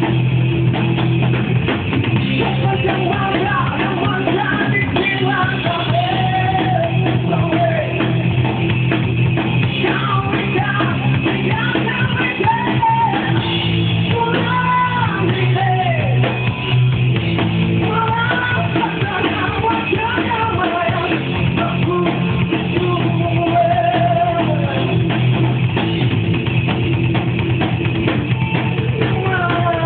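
Rock band playing live with a male singer, over drums and guitar, loud and steady throughout.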